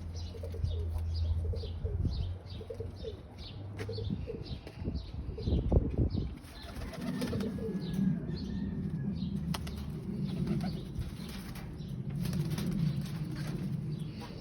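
Pet birds: a quick series of short high chirps at first, a flurry of wing flaps about five seconds in, then low, repeated cooing that lasts to the end.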